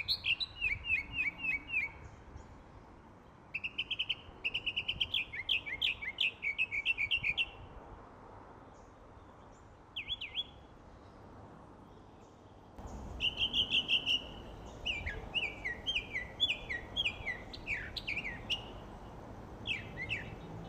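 Birdsong: a songbird singing phrases of quick, downward-sliding whistled notes, each phrase lasting a couple of seconds with short pauses between.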